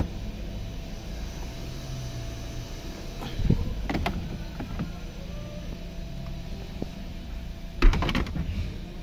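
Plastic dashboard air-vent trim being pried out by hand: a few plastic clicks and knocks about three and a half seconds in, then a louder cluster near eight seconds as the panel's clips let go, over a steady low hum.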